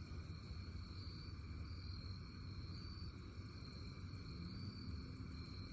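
Insects, crickets or similar, trilling steadily on a high note that swells and eases about once a second, over a low steady hum.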